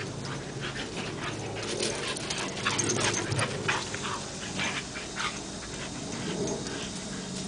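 Soft Coated Wheaten Terrier making short, irregular breathy sounds and small noises, with a faint steady low hum underneath.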